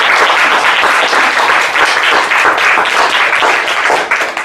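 Audience applauding at the end of a talk: dense, steady clapping from many hands that dies away near the end.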